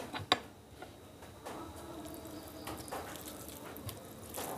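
A glass bowl clinks down on the plate once just after the start. Then comes soft, wet squishing as a bare hand mixes rice with curry sauce.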